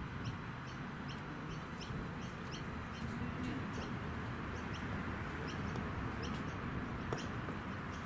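Small birds chirping over and over in short, high notes above a steady low rumble, with a single sharp click about seven seconds in.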